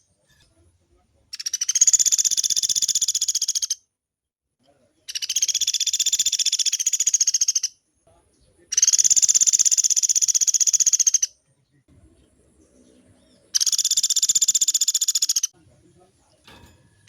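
Woodpecker (pelatuk beras) giving long rattling rolls: four rapid trilled calls, each about two to two and a half seconds long, with short pauses between.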